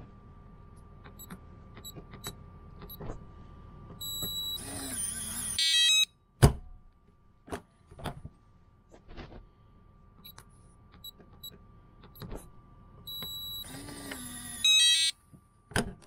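RVLock V4.0 electronic keypad RV door lock: short high beeps as the keypad buttons are pressed, then the lock's motor runs for about a second and a half under a run of stepped confirmation beeps, followed by a sharp clack. The same keypress beeps, motor run and beeps come again about eight seconds later, with another clack near the end.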